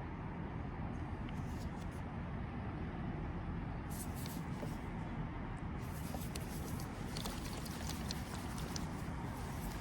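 Steady background noise with a heavy low rumble, joined from about four seconds in by scattered light clicks and ticks.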